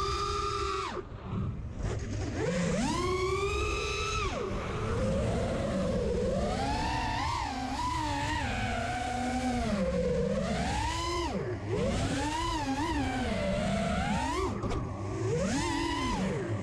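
Electric motors of an FPV drone whining, the pitch rising and falling constantly with the throttle. The whine drops away briefly about a second in and twice more later, where the throttle is cut.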